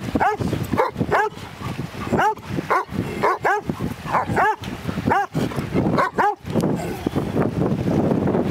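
A dog whining in a rapid series of high yips, each rising and falling in pitch, often two at a time, which stop about six seconds in.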